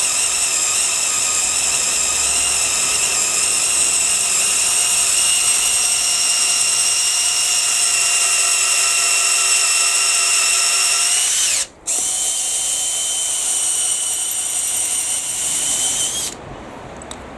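Makita XFD01 18V brushless cordless drill running in low gear, boring a 10 mm auger bit into hard manuka wood: a steady motor whine. About two-thirds of the way through the motor cuts out for a moment and starts again, then stops about a second before the end.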